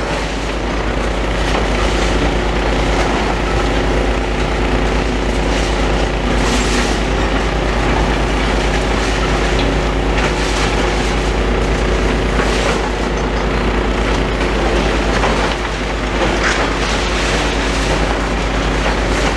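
Demolition excavator's diesel engine running steadily, with irregular crunches, knocks and clatters of concrete and debris as the building is broken down.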